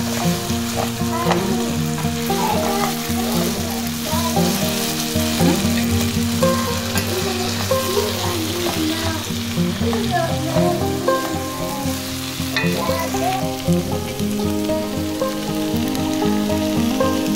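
Beef fry sizzling in a frying pan while a spatula stirs and scrapes through it, with music playing underneath.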